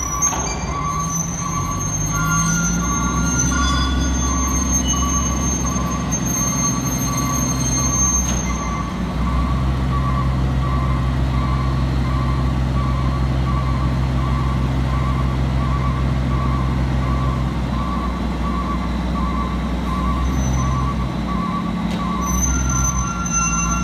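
Roll-off truck's diesel engine running under load, rising a couple of seconds in and holding steady, with its warning beeper sounding repeatedly throughout as the hoist sets a container down and the truck pulls out from under it. A thin high whine sits over it in the first third and again near the end.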